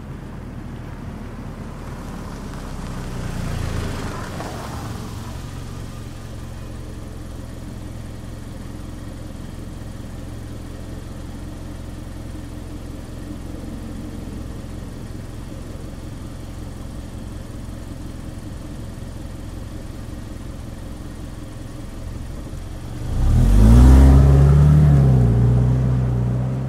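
Mazda CX-5 small SUV heard from the side: it pulls in and stops about four seconds in, then idles steadily. Near the end it accelerates away, loud and sudden, its engine note rising and then fading as it leaves.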